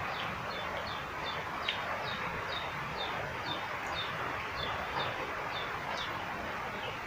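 A bird calling in a quick, steady series of short high chirps, each dropping in pitch, several a second, over a constant background hiss of outdoor noise.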